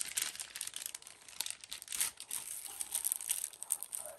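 Thin clear plastic bag crinkling and rustling in quick, irregular bursts as it is torn open and handled.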